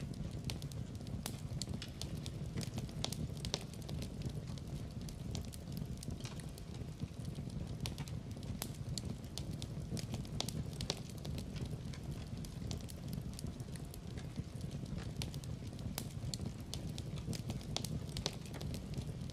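Wood fire burning in a fireplace: a steady low rumble of flames with irregular sharp crackles and pops.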